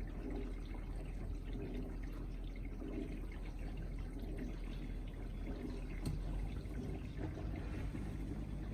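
Bosch dishwasher washing: water sprayed and sloshing inside the tub over a steady low hum of the circulation pump, the swish swelling about once a second as the spray arm sweeps round. A light click about six seconds in.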